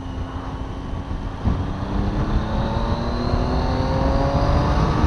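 Triumph Tiger 800's three-cylinder engine accelerating. Its pitch drops about one and a half seconds in, then climbs steadily as it gets louder.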